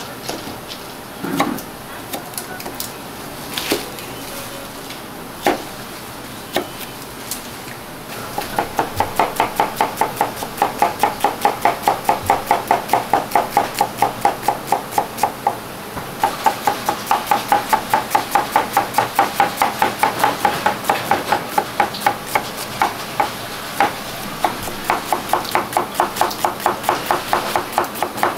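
Kitchen knife slicing onions on a wooden cutting board: a few separate knocks at first, then from about eight seconds in a fast, steady run of cuts, about four to five a second, with a couple of short breaks.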